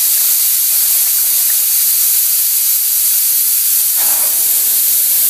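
Compressed air hissing steadily through a gravity-feed spray gun with its nozzle loosened and the trigger held, back-flushing isopropyl alcohol in the cup to clean the inside valve assembly.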